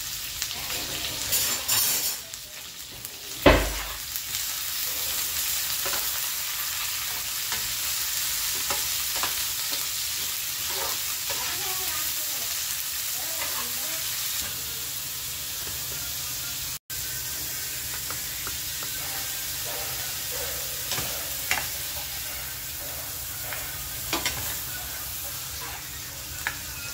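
Bell pepper strips sizzling in a non-stick frying pan while a steel spatula stirs them, with scattered small clicks of the spatula against the pan. A single loud knock comes about three and a half seconds in.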